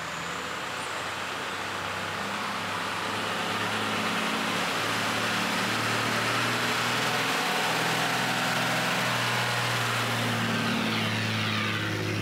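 A bus's engine running as the bus comes up the street and passes close by. It grows louder over the first few seconds and stays loud, with a sweeping whoosh near the end as it goes past.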